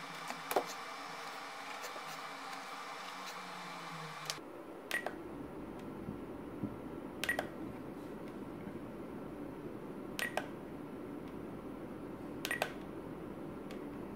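Short beeps from a Spektrum DX9 radio transmitter as its menu roller and buttons are pressed, four of them a few seconds apart starting about a third of the way in, over a steady background hiss.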